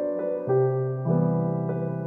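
Background piano music: a gentle keyboard tune with a new note or chord about every half second and a lower bass note joining about half a second in.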